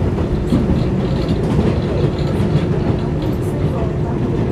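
R62A subway car running between stations, heard from inside: a steady rumble of wheels on the track with a faint, steady hum.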